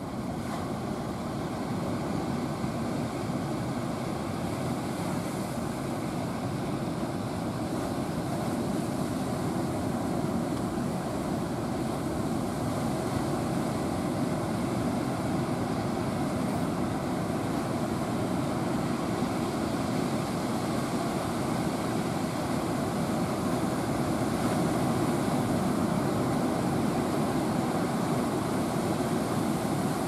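Heavy surf: a steady roar of large waves breaking, slowly growing louder, with a faint steady engine hum underneath.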